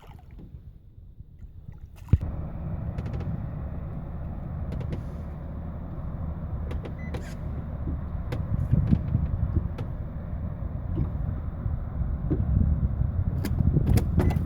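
A small boat motor starts about two seconds in and runs steadily at a low hum, with scattered clicks and knocks on top.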